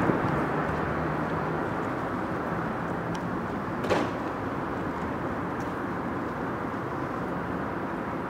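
Street traffic noise, loudest at the start and dying down to a steady background rumble as a passing vehicle moves away. A single short knock about four seconds in.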